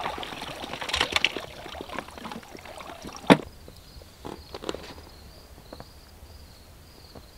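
Scattered clicks and knocks of gear being handled in an inflatable dinghy, with light water sounds around the boat; one sharp knock a little over three seconds in is the loudest.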